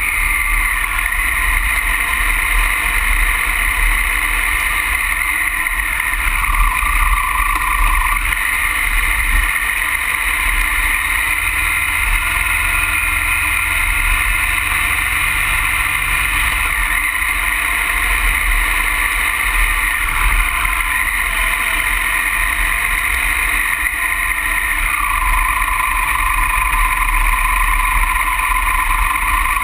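Triumph Tiger Explorer's three-cylinder engine running on the move, its pitch rising and falling a few times with the throttle, over a steady low rumble of tyres on a loose gravel track and wind buffeting the microphone.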